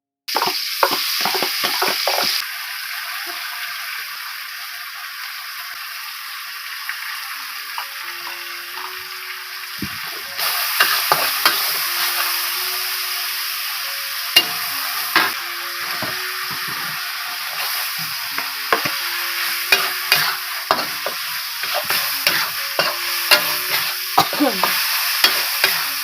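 Eggplant sambal frying in hot oil with a steady sizzle, while a spatula scrapes and knocks against the pan as it is stirred. Faint soft music plays underneath from about a third of the way in.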